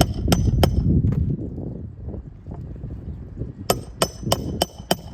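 Hammer driving 1¼-inch roofing nails into a laminate shingle: quick, evenly spaced strikes about three a second, three at the start, then a pause and a run of about five more near the end.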